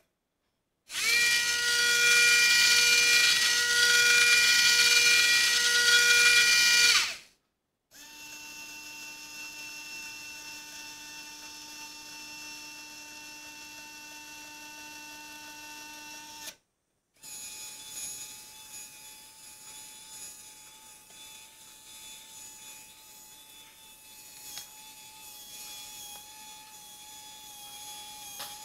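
Small electric motors whirring in three separate runs as the soup-can mechanism lowers its disco ball inside and closes the lid; the first run is much louder and hissier, the later two quieter and steady.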